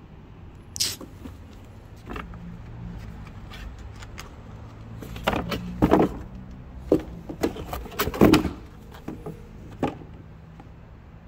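Cardboard packaging being handled: a stiff card folder and a Priority Mail cardboard box rustle and knock in a string of short, sharp noises, loudest about six and eight seconds in, over a steady low hum.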